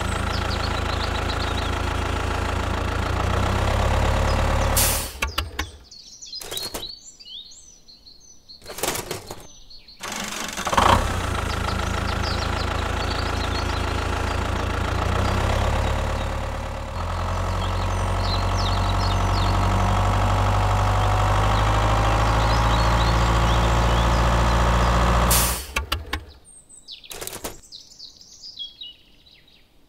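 A tractor engine running steadily. It cuts out about five seconds in, starts again about five seconds later, changes its note about seventeen seconds in, and stops about 25 seconds in. Birds chirp in the quiet gaps, and there are a few sharp clicks.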